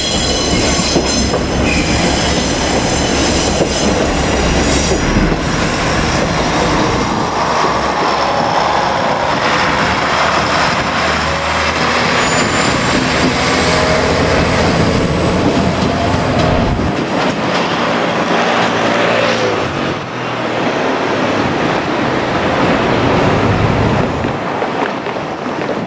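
A two-car KiHa 47 diesel railcar set passing close by, its wheels clacking over the rail joints and squealing thinly. The low engine rumble drops away about two-thirds of the way through while the wheel and rail noise goes on.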